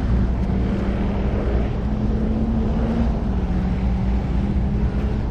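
An engine running steadily, its pitch rising slightly and then dropping about three seconds in, over low wind rumble on the microphone.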